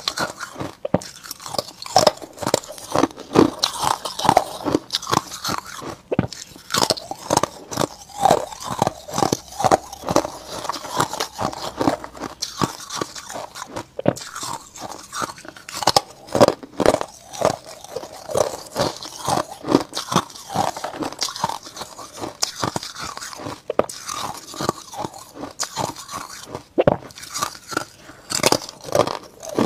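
Ice crunching and being chewed as frost-coated ice discs are bitten off mouthful by mouthful: a dense, irregular run of sharp crunches.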